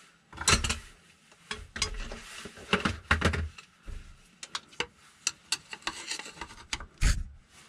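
A clutch return spring being levered onto the clutch arm of an air-cooled VW transaxle with a screwdriver: irregular metal clicks, scrapes and rubbing. The loudest knocks come about half a second, three seconds and seven seconds in.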